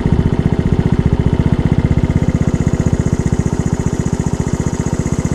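Honda C90 step-through motorcycle's single-cylinder four-stroke engine running steadily while riding, its exhaust beating fast and even.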